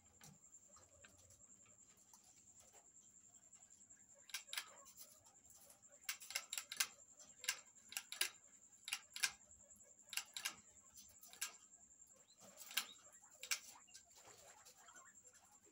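Guinea pigs moving about a wire cage with a plastic mesh floor: irregular short clicks and taps, starting about four seconds in and bunched through the middle, over a faint steady high whine.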